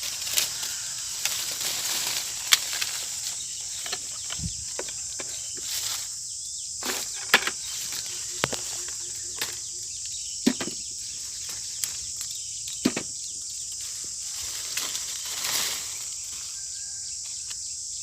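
Steady high-pitched chirring of insects such as crickets, with scattered sharp clicks and brief rustles over it, the loudest click about seven seconds in.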